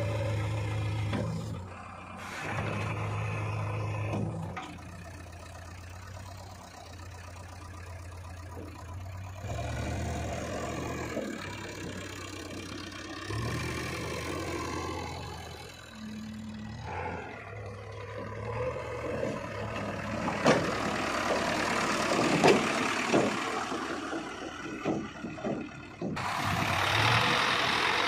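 JCB 3DX backhoe loader's diesel engine running and revving as the machine works, its note rising and falling with load. Sharp knocks and clatter come in a spell near the end.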